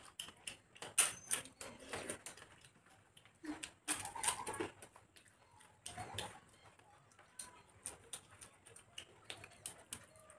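Eating sounds: chewing with irregular crisp crunches and clicks as papad (thin fried lentil wafers) is broken and bitten, with louder clusters about one, four and six seconds in.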